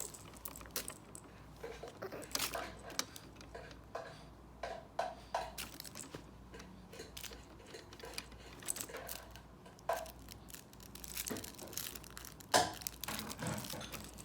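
Quiet, scattered rustles and small clicks of a baby moving about while playing, with one sharper knock near the end.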